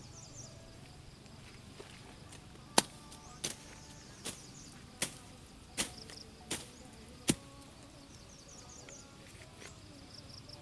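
Seven sharp chopping strokes, about one every three-quarters of a second, a blade striking a stalk or wood, with insects chirping steadily behind.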